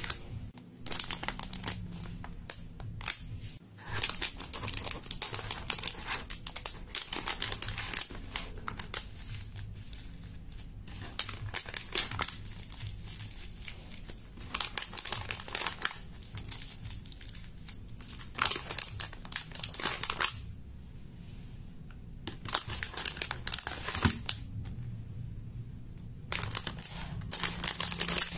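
Clear plastic packaging and small zip-lock bags crinkling and rustling as they are handled, in stretches of crackling broken by a few short pauses.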